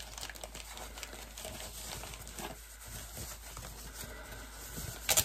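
Tissue paper rustling and crinkling as a small wrapped package is unwrapped by hand, with a sharper, louder crinkle near the end.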